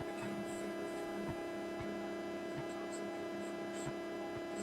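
Steady electrical hum with several held tones, and a few faint ticks on top.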